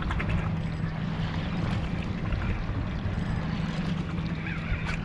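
Boat motor running with a steady low hum, under wind and water noise on the microphone.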